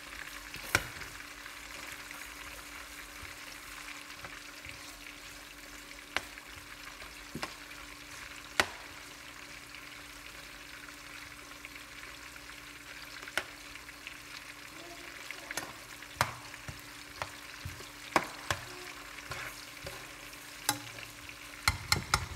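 Onions, tomato and thyme sautéing in oil in a frying pan: a steady, soft sizzle, with a metal spoon stirring and clicking against the pan every so often, several quick clicks near the end.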